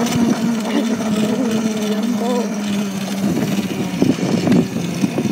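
Small electric kids' dirt bike's motor humming steadily under way. It runs slow on a nearly flat battery. A few knocks and rattles come about four seconds in.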